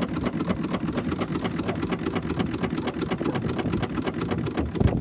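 Blackstaff steeple compound steam engine running steadily, its valve gear and exhaust beating in a rapid, even ticking rhythm over a steady low rumble.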